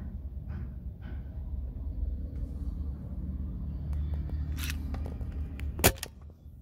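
Steady low rumble of a vehicle on the move, with a few clicks and then one sharp, loud click near the end, after which the rumble falls away.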